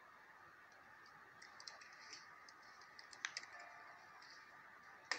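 Near silence: room tone with a scattering of faint small clicks and ticks, one sharper click about three seconds in, and a sudden louder sound right at the very end.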